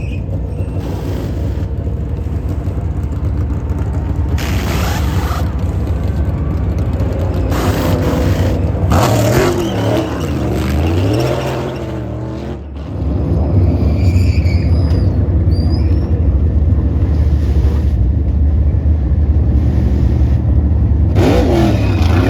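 NASCAR Cup Series stock cars' V8 engines running at racing speed, several cars going by with their engine pitch rising and falling as they pass. The sound drops briefly and changes abruptly about two-thirds of the way in, then carries on as a loud, steady engine drone.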